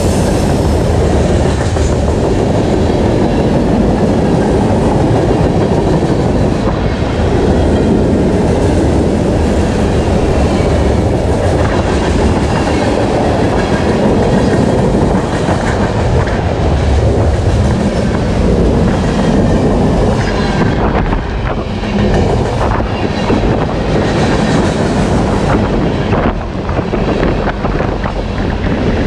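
Freight train rolling past at close range, a long string of cars with steel wheels clicking and clattering over the rail joints.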